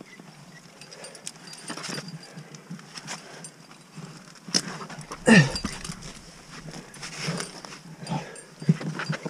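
A climber breathing hard with exertion while jamming into a granite crack, with one loud grunt of effort, falling in pitch, a little over five seconds in.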